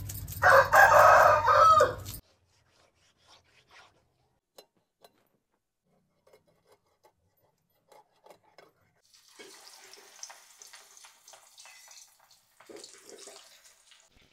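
A rooster crowing once, loud and about two seconds long, its pitch bending at the end. Faint scattered taps and a soft hiss follow.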